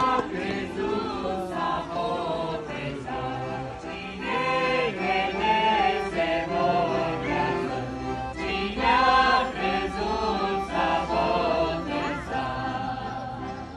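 A choir of many voices singing a hymn. The singing fades near the end.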